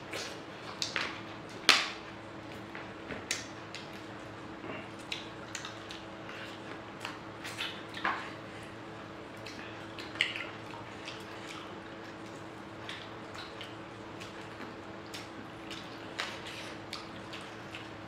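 Eating by hand, mutton curry and chitau pitha rice pancakes: scattered wet mouth clicks, smacks and squelches of fingers in the curry. The sharpest click comes about two seconds in, over a steady low hum.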